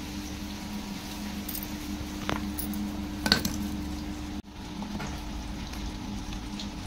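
A metal knife clinks a couple of times against a steel bowl, the second clink sharper, over a steady low hum.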